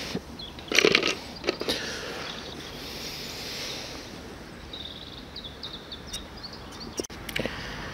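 Clicks and taps of a hand tool and bread bait on a plastic side tray, loudest about a second in, with a few more near the end, over a steady outdoor hiss. A few faint bird chirps come in the middle.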